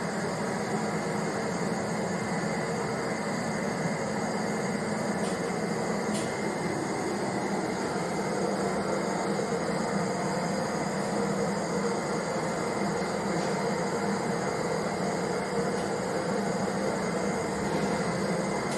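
Steady, unchanging hum and rush of machinery running.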